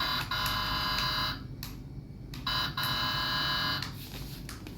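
Electronic buzzing sound effect from a toy remote control excavator's built-in speaker, played twice, each tone about a second and a half long with a short pause between.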